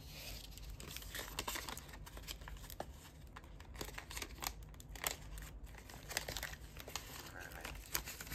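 A clear plastic sleeve and a black bubble mailer crinkling and rustling in the hands as a packet of cards is slid into the mailer. An irregular run of soft crinkles and rustles.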